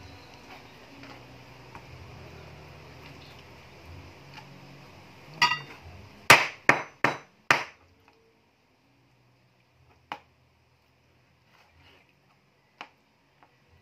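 A large kitchen knife chopping raw chicken pieces on a plastic cutting board: four hard chops in quick succession a little past the middle, after a lighter clink, then a few faint knife taps.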